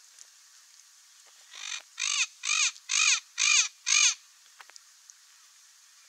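Turquoise-fronted parrot (blue-fronted amazon) giving a run of six harsh squawks about two a second, the first one fainter.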